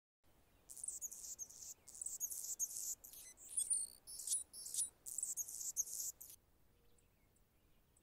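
Anna's hummingbird singing: a high, scratchy song in a rapid run of short bursts that stops about six seconds in, followed by a few faint high ticks.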